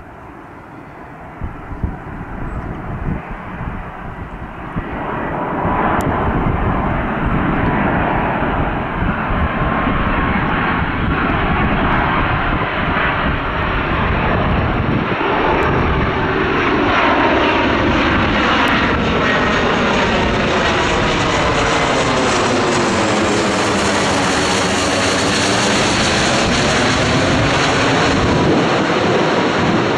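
Airbus A330 MRTT Voyager tanker's Rolls-Royce Trent 772B turbofans on final approach with gear down. The sound swells over the first five seconds or so as the aircraft closes in, then holds as a loud, steady jet roar and hiss. Near the end, as it passes low overhead, the sound takes on a slow, sweeping, phasing quality.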